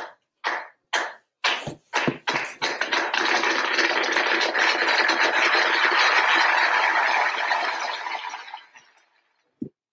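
Applause: a few separate claps about twice a second that quickly thicken into steady clapping, which dies away near the end.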